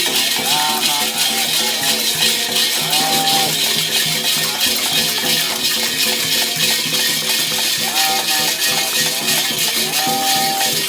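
Candomblé ritual music led by shakers rattling in a steady, even rhythm, with short held melodic notes now and then over the top.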